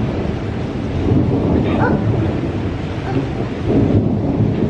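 Thunder rumbling over steady rain, swelling about a second in and again near the end.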